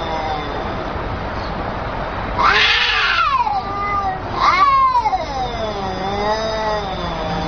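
Two cats yowling at each other in a hostile standoff. Long, wavering low yowls run throughout, broken by two louder, higher wails, one about two and a half seconds in and one about four and a half seconds in.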